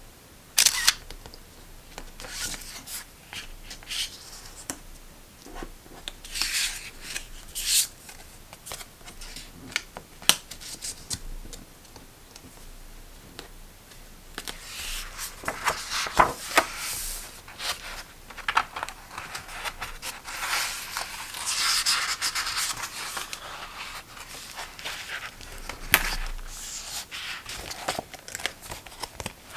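Hands handling a grid-page journal in a clear plastic cover: a card sliding out of and into the cover's pocket, with irregular rubbing, scraping and rustling and scattered light taps and clicks. Near the end the book is lifted and its pages flipped.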